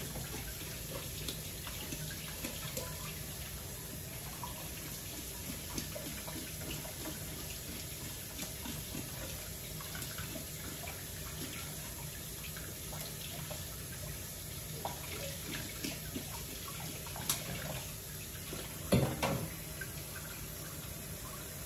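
Kitchen tap running into a sink as whole fish are rinsed clean by hand, with scattered small knocks and splashes. A brief louder sound near the end.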